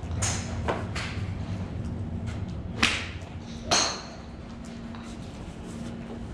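A 7-iron strikes a golf ball with a single sharp crack, the loudest sound, about three seconds in. A second sharp, ringing crack follows less than a second later, and a few fainter clicks come earlier, all over a steady low hum.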